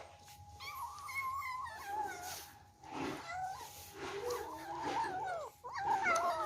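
Several kittens mewing over one another, with wavering calls that run almost without a break and grow louder near the end.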